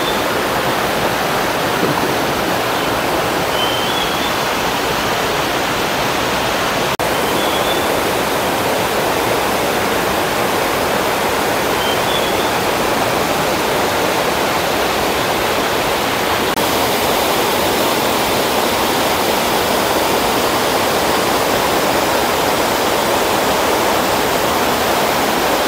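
Steady rushing roar of a tall waterfall pouring down a rock face into a forest gorge. About four brief high chirps from a bird sound faintly over it in the first half.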